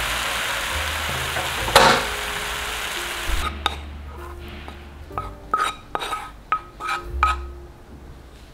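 Mashed banana sizzling in butter in a nonstick frying pan, with one sharp click just under two seconds in as the stove is switched off. About three and a half seconds in the sizzle stops, and a wooden spoon scrapes the pan and knocks against a cut-glass bowl in a run of short, lightly ringing taps.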